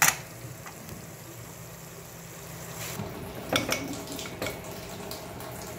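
Aluminium pressure cooker handled on the stove: a sharp knock right at the start, then a few metal clacks about three and a half to four and a half seconds in as the lid is fitted and its handles locked shut.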